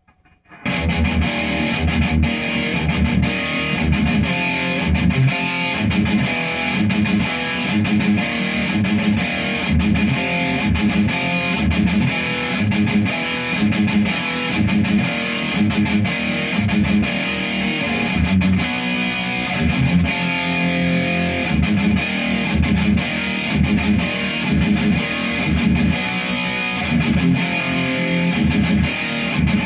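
Distorted electric guitar riffing through a Futile Art FX Chainsaw EQ pedal, an HM2-style EQ, into a Marshall amp; the playing comes in about half a second in and goes on in rhythmic chugs and chords.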